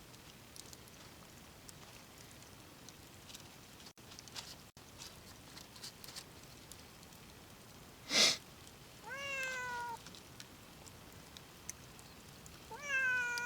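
Hungry cat meowing twice to beg for food: two drawn-out meows falling in pitch, about nine seconds in and again near the end. A short sharp noise comes just before the first meow, with faint scattered clicks throughout.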